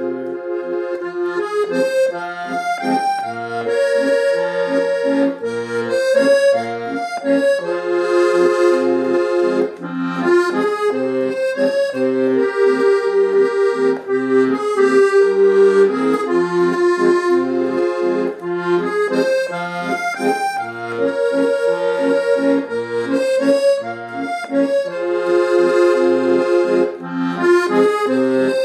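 Solo accordion playing a song's melody over a left-hand accompaniment of repeated low bass notes and chords, with no singing: a karaoke backing.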